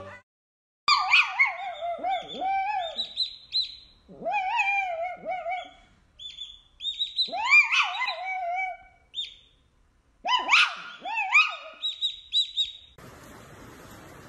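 Baby chick peeping in four bursts of high chirps, mixed with lower warbling calls that swoop sharply down in pitch. Near the end the calls stop and a steady hiss begins.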